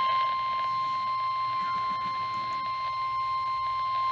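NOAA Weather Radio 1050 Hz warning alarm tone: one unbroken, steady electronic tone. It is the alert signal that comes right before a National Weather Service warning message is read.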